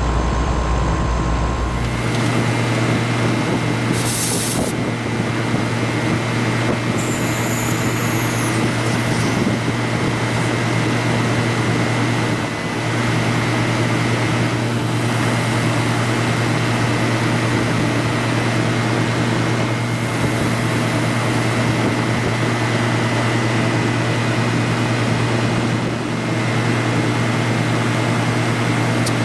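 A 2-ton rooftop-style package air conditioner running: a steady electrical hum from the compressor with the rush of the condenser fan. The unit is running with high superheat and high subcooling.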